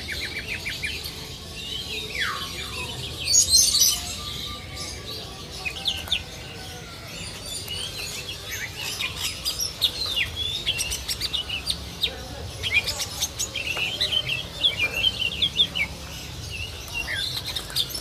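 Many caged songbirds chirping and calling over one another: quick high chirps and short trills, with one falling whistle about two seconds in, the chirping growing busier from about halfway.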